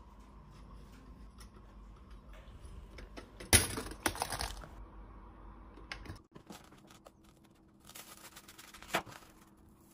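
Kitchen handling sounds from a toaster and a knife. A sharp clack from the pop-up toaster about three and a half seconds in, with rattling as the toasted bread is pulled out. Near the end, a knife saws through a crusty bread roll and taps once on the plastic cutting board.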